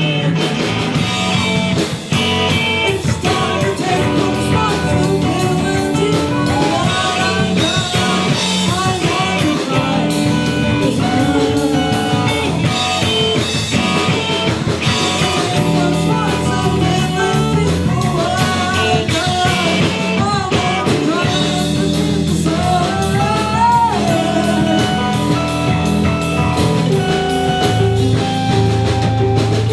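A live rock band playing a song: electric guitar, bass and drum kit, with a singing voice.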